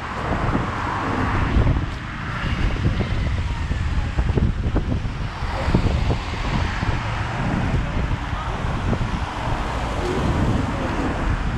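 Wind buffeting the microphone in uneven gusts, over the hiss of road traffic passing on a wet road surface.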